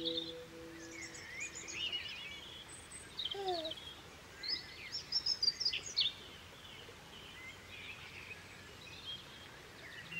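Songbirds chirping and twittering, busiest about five to six seconds in. A held musical chord fades out during the first two seconds.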